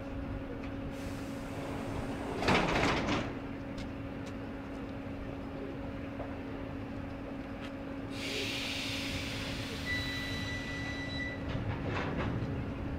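ED9M suburban electric train standing at a platform with a steady electrical hum. About two and a half seconds in there is a short, loud hiss of released air. From about eight to eleven seconds in comes a longer hiss of air, with a faint whistle near its end, then a few clicks.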